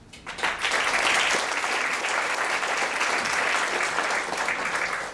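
Audience applauding, starting a moment in and cutting off suddenly near the end.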